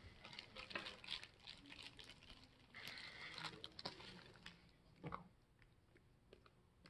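Faint crinkling and crackling of a plastic bag being handled, with scattered light clicks and taps.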